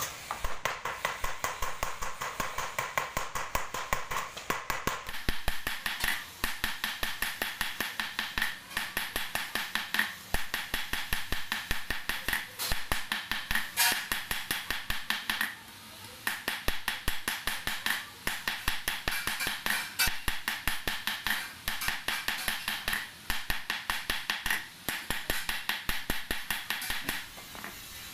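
Wooden mallet beating a hammered brass disc on a steel stake, about four or five blows a second, the brass ringing after each blow. The blows break off briefly about halfway through, then carry on.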